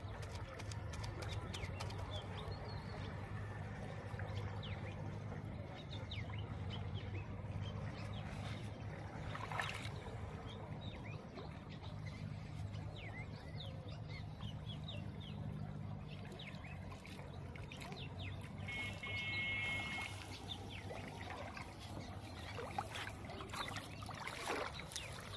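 Water trickling and dripping as a cast net is drawn in and lifted out of shallow floodwater, over a steady low hum. Small birds chirp now and then, with one short buzzy call about three-quarters of the way through.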